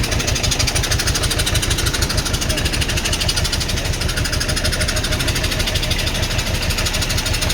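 A heavy engine running steadily close by with a fast, even clatter that holds unchanged throughout.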